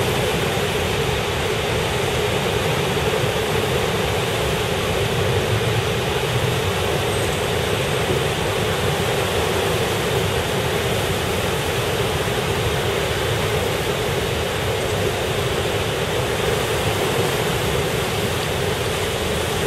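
Steady, loud rush of floodwater pouring and churning over its banks.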